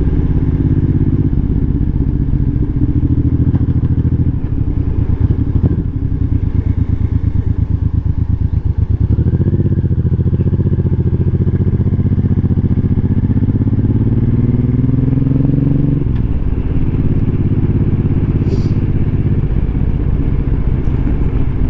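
2013 Suzuki Boulevard M90's V-twin engine running as the motorcycle rides along. About nine seconds in it climbs steadily in pitch as the bike accelerates, then drops back suddenly about sixteen seconds in and runs steady again.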